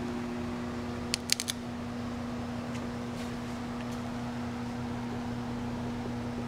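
Steady electrical hum of a Schumacher battery charger supplying current to the dry cell, with a quick run of about four sharp clicks about a second in.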